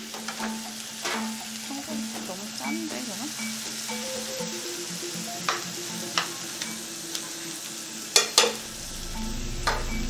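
Rice and vegetables sizzling as they are stir-fried in frying pans on a gas range, with utensils clinking against the pans now and then and two loud clanks in quick succession a little after eight seconds in.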